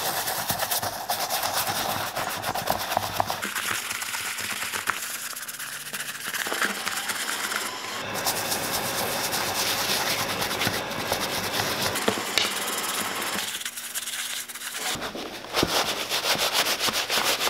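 Small bristle brush scrubbing wet, shampoo-lathered leather boot uppers in quick scratchy strokes. Near the end, a paper towel is rubbed over the damp leather.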